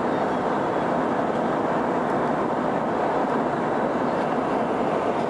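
Steady cabin noise of a Boeing 707 airliner in flight: an even rush of airflow and jet-engine noise heard from inside the passenger cabin.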